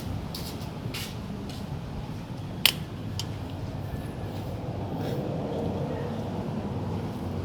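A few short metallic clicks and taps of tools and parts during work on a scooter engine's top end, one sharper click about two and a half seconds in, over a steady low background hum.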